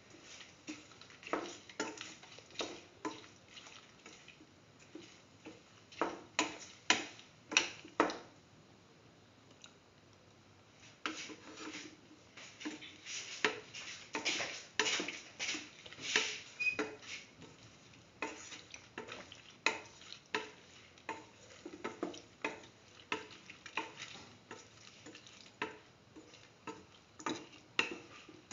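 A spatula stirring chunky yam and chayote pieces in yogurt in a pan, knocking and scraping against the pan about once or twice a second, with a pause of about two seconds around a third of the way through.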